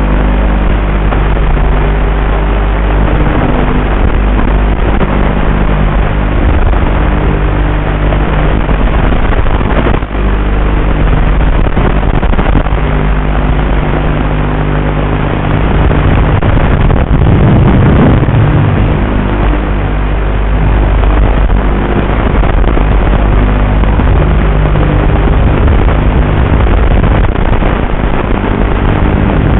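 Eachine H8 mini quadcopter's brushed motors and propellers buzzing steadily in flight, recorded close up on the drone itself, with a brief swell a little past halfway.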